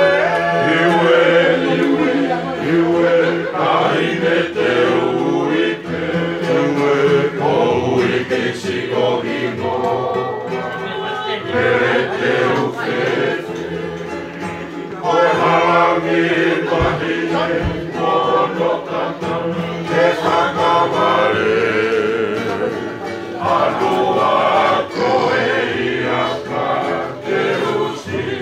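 Group of men singing a Tongan song together in harmony, accompanied by a strummed acoustic guitar and ukulele.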